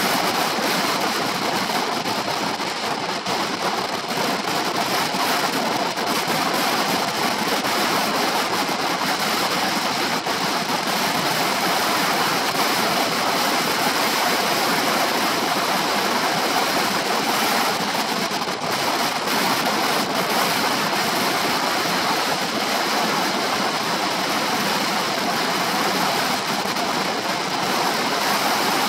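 Steady wind rushing over the microphone of a shoulder-mounted camera on a moving Honda PCX 125 scooter, covering the scooter's engine.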